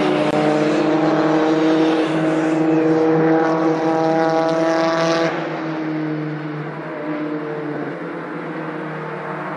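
Touring car racing engine running at steady, high revs, loud for about five seconds and then dropping away abruptly to a quieter, steady run.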